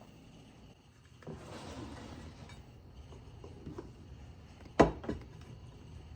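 Kitchen cookware and utensils being handled: a scrape lasting about a second, then a sharp knock just before five seconds in and a smaller knock right after it.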